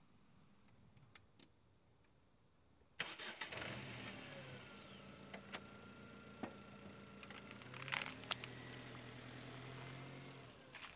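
An engine starts suddenly about three seconds in and runs steadily, its pitch shifting a little now and then, with a few sharp clicks over it; it drops away near the end.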